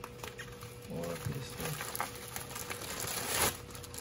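Plastic packaging crinkling and rustling as bubble wrap is pulled off a clear plastic bag, with a louder rustle about three and a half seconds in.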